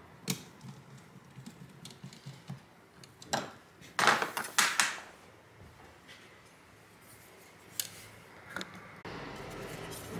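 Scattered clicks and taps of small hand tools and graphics-card parts being handled on a workbench, with a louder short clatter about four seconds in.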